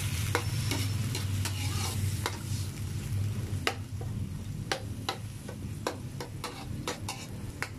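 Metal ladle scraping and clinking against an aluminium wok as chicken gizzards are stirred, with irregular clinks about once or twice a second over a steady sizzle of the gizzards cooking in a little liquid. A steady low hum runs underneath.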